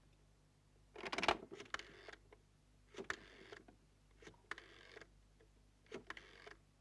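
Telephone being dialled by hand: about five short mechanical rattles of the dial, each a second or so apart, the first the loudest.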